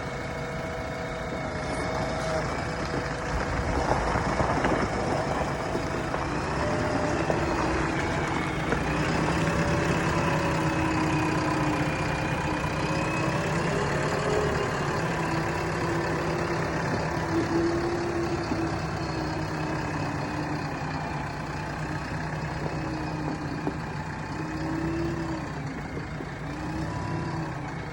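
Diesel engine of heavy construction equipment running continuously, its pitch wavering up and down as the machine works.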